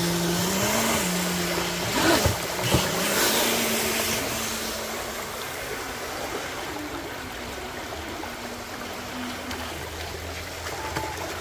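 Pro Boat Jet Stream RC jet boat running on the water: a steady motor whine that rises briefly about a second in, with rushing, splashing water around two seconds in, then grows fainter.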